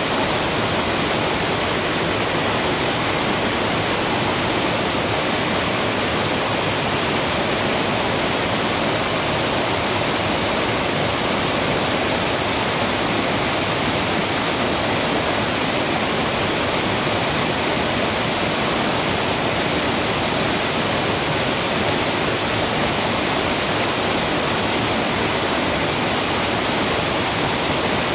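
Waterfall and mountain stream cascading over boulders: a loud, steady rush of white water that never changes.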